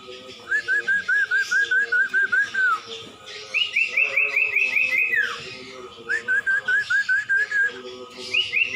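Cumpon (sirtu) bird song: phrases of about ten quick whistled notes, around four a second, each phrase ending in a falling slur. The phrases alternate between a lower and a higher pitch, with three full phrases and a fourth beginning near the end.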